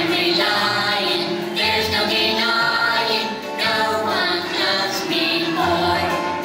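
A Christian children's song: singing voices over an instrumental accompaniment with a steady low bass line.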